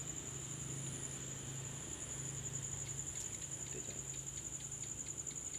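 Crickets chirring at night: a steady, high-pitched insect trill that pulses faintly throughout, with a few faint ticks.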